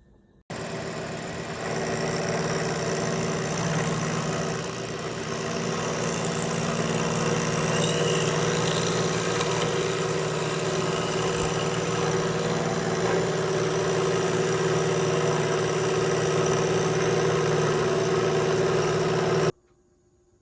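A shop machine running steadily with a constant low hum and a high whine, switching in abruptly about half a second in and cutting off sharply near the end.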